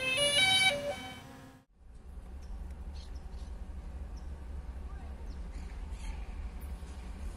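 A short chiming intro jingle of a few stepped notes that lasts about a second and a half and cuts off. It is followed by a steady low rumble with a few faint bird chirps.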